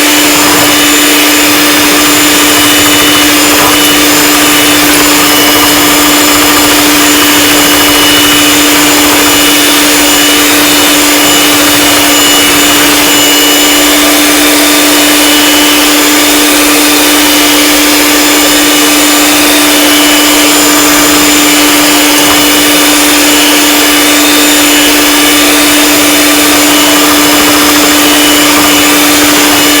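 Electric mixer running steadily with a constant motor hum, beating egg whites and sugar into meringue for macarons.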